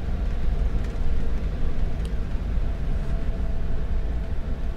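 Steady low rumble of the Ford's engine and road noise heard from inside the cabin while driving.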